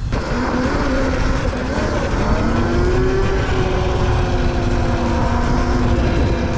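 Valtinsu EM5 Pro mini motorcycle being ridden, with heavy wind rumble on the microphone. The motor's whine rises in pitch for about two seconds, then holds steady.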